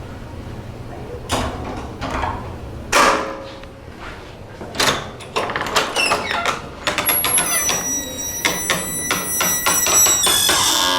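Creaky doors on Sargent door closers: several knocks and latch clicks from the Sargent 18-77 mortise locks, the loudest about three seconds in. From about seven seconds in comes a steady high-pitched creak that changes pitch near the end.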